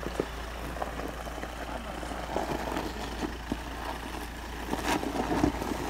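Toyota Hilux 2.8-litre turbodiesel running at low revs as the pickup crawls down over loose rocks, with stones crunching and clicking under the tyres.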